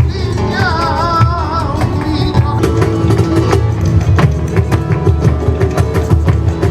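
Music with a steady beat and heavy bass; a wavering melody line runs through the first couple of seconds.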